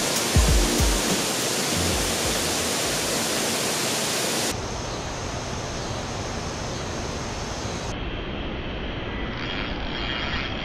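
Steady rushing hiss of running water, without distinct splashes or knocks; it turns duller about four and a half seconds in.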